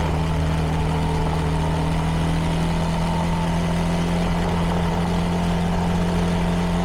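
CFMoto 300NK's single-cylinder engine running through its stock exhaust at a steady, unchanging engine speed as the bike is ridden slowly along a dirt road.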